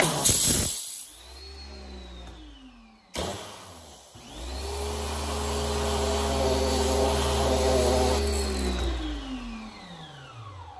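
Karcher K1700 Cube electric pressure washer firing through its spray gun in two goes: a short burst, then, about three seconds in, a longer spray of several seconds. Each time the water jet hisses out and the motor winds up to speed, runs steadily, then winds down in a long falling whine once the trigger is let go.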